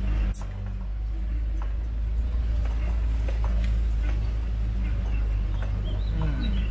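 Vehicle driving: a steady low rumble with scattered knocks and rattles, and a sharper knock just after the start.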